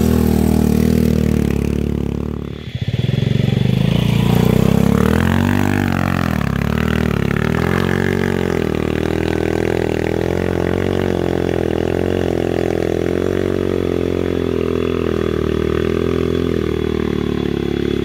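Motorcycle engine running, its note dipping briefly about two and a half seconds in, then rising and wavering for a few seconds before settling into a steady drone.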